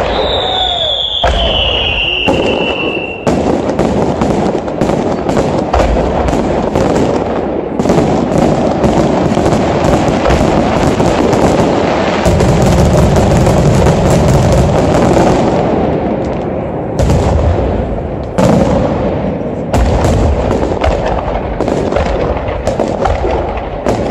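A fast barrage of aerial firework shells bursting, densest and heaviest about halfway through, with crackling and booming. In the first three seconds there is a whistle falling in pitch.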